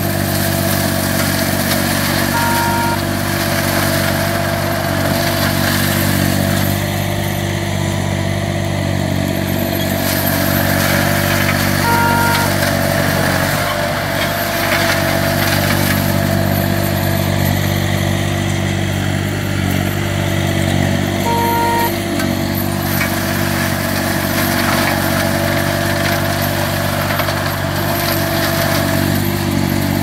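Green Climber LV600 remote-controlled slope mower's engine running steadily under load while its flail mulching head shreds dense brush and vines. A short two-tone beep sounds three times, about nine seconds apart.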